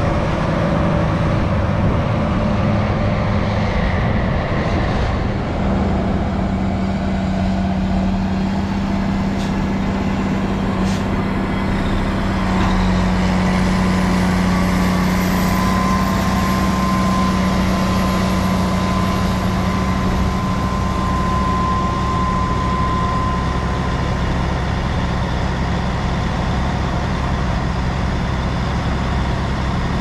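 Large diesel engines of silage-packing tractors and a silage truck running steadily under load. A steady high whine joins in about halfway through and stops several seconds later.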